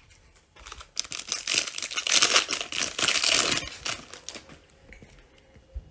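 Foil wrapper of a Panini Mosaic football card pack being torn open and crinkled as the cards are pulled out. The crinkling starts about half a second in, is loudest in the middle, and dies away after about four seconds.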